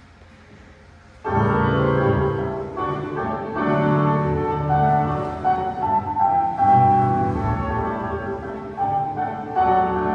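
Piano music starts abruptly about a second in and plays on in held chords and a melody.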